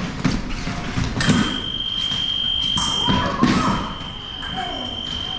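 Electronic fencing scoring machine sounding its steady high tone for about two seconds to signal a touch in a sabre bout, then sounding again more faintly after a short break. Thuds of footwork and blade contact come around the start of the tone and in the break.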